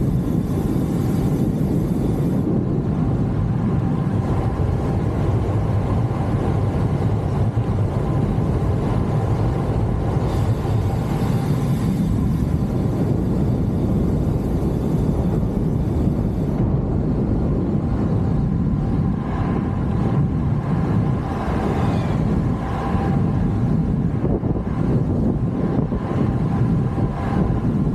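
Steady wind rushing over the microphone of a camera riding along at about 45 km/h, mixed with tyre and road noise.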